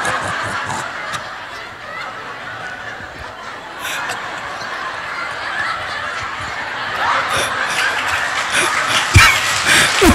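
A large crowd laughing together, dipping in the middle and swelling again near the end, where scattered clapping joins in.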